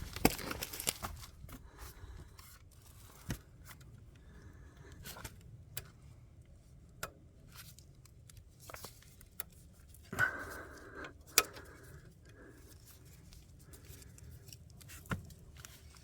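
Scattered small clicks and light handling noises as a circlip and washer are worked onto a motorcycle centre-stand pivot, with a brief scraping rustle about ten seconds in.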